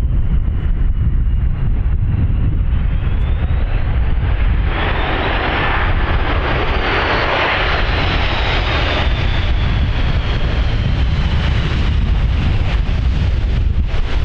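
Turbofan engines of an Airbus A330-200 jet airliner passing, a high fan whine that rises and then slowly falls, with a louder rushing stretch in the middle, over a constant low rumble of wind on the microphone.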